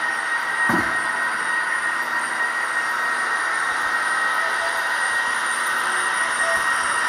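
Gauge 1 model train, a Fine Models SBB BDe 4/4 motor coach with its coaches, running on metal track: a steady rolling and motor whir with a high, steady whine. A brief low falling sound comes just before a second in.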